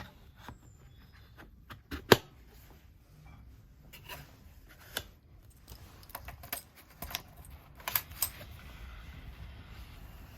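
Keys jangling in a series of light clicks and rattles, the sharpest about two seconds in, with further clusters around five and eight seconds.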